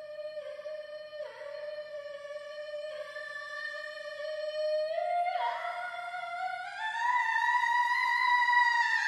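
A solo voice holds one high, wordless note and dips briefly downward several times. In the second half it slides higher and grows louder.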